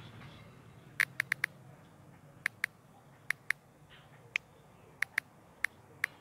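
Keystroke clicks from typing on a smartphone's on-screen keyboard: about a dozen short, sharp clicks in quick irregular groups, starting about a second in.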